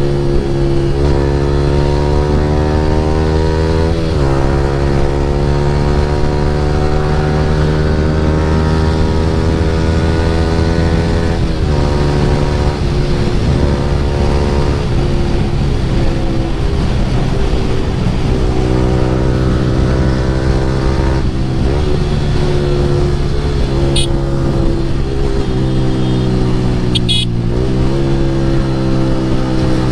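Yamaha R15 V3's single-cylinder engine running through an Akrapovic full-system exhaust while riding, the pitch climbing through the gears. It drops back at gear shifts about four and eleven seconds in and again past twenty seconds, then rises again each time.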